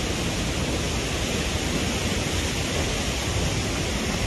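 Large waterfall close by: a steady, even rush of falling water.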